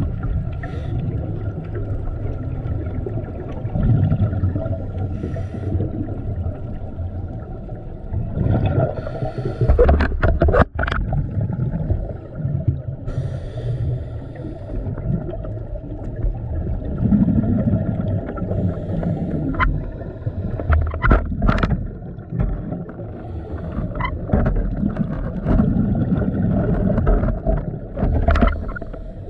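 Underwater sound picked up by a diver's camera: a low rumble and a steady hum throughout, with a loud surge of bubbling about eight to eleven seconds in and scattered sharp clicks in the second half.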